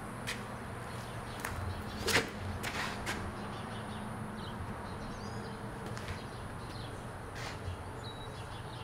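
Footsteps on a concrete floor during a sidearm disc golf run-up and throw: a few sharp taps in the first three seconds, the loudest about two seconds in. Faint bird chirps over a steady outdoor background.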